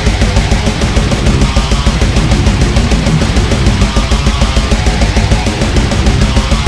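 Heavy metal music: distorted guitar over fast, steady drum beats, loud and without a break.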